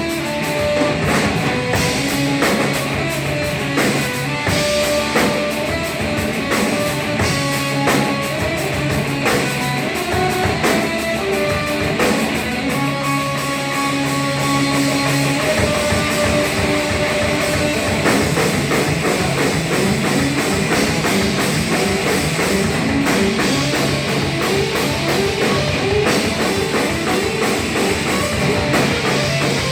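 Hardcore band playing live: distorted electric guitar riffs over a drum kit. The riff changes partway through to a faster, denser part.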